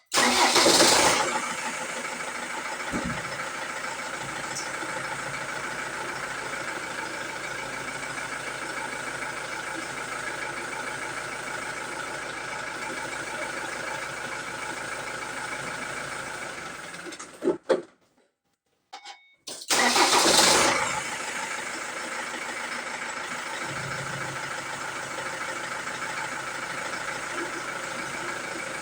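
Ford Transit Mk7 2.2 TDCi diesel engine starting, then idling steadily until about 17 seconds in, when it dies away and stalls. About two seconds later it is started again and idles on. The van stalls intermittently, which the owner suspects may be a failing diesel pump.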